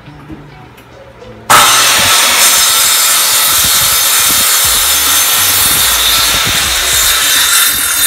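Makita circular saw starting abruptly about a second and a half in, then running loud and steady as it crosscuts a plywood board.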